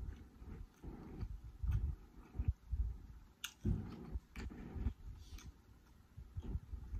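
Close-miked chewing of seafood-boil food in irregular bursts, with a few sharp mouth clicks about three and a half and four and a half seconds in.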